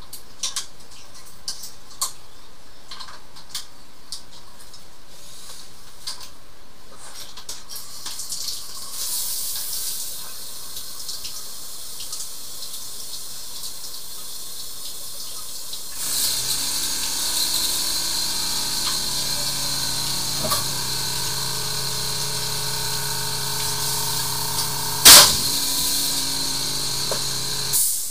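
Scattered clicks of equipment being handled at a toilet. About sixteen seconds in, a drain-clearing machine's motor starts and runs steadily with a humming tone and a hissing rush of air and water. A single sharp knock, the loudest sound, comes near the end.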